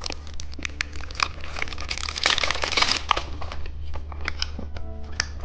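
Plastic candy packaging crinkling and rustling as it is handled, with scattered sharp clicks and taps, over a low steady hum.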